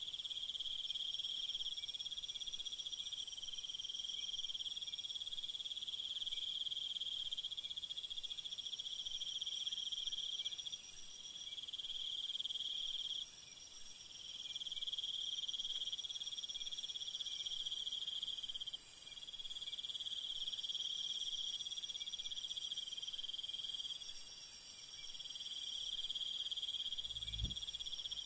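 Steady high-pitched chorus of crickets and other insects, several layered trills overlapping without a break. A brief low thump comes near the end.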